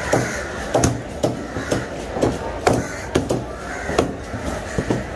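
A heavy knife chopping through fish on a wooden log chopping block, in sharp repeated chops about every half second.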